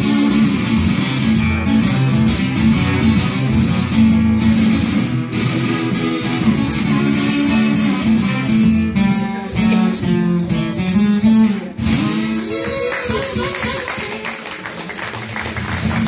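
Live acoustic blues shuffle: a steel-string acoustic guitar strummed in a driving rhythm with a harmonica played into a vocal microphone, its notes bending and sliding over the guitar. About twelve seconds in the strumming breaks off briefly and the texture turns to a steadier wash.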